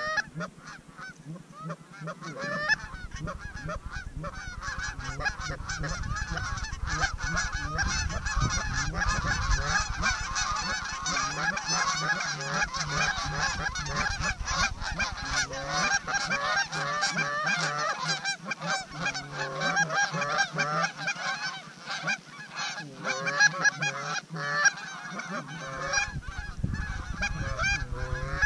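Flocks of geese honking and clucking overhead, many calls overlapping into a dense chorus that builds after the first few seconds and thins a little near the end.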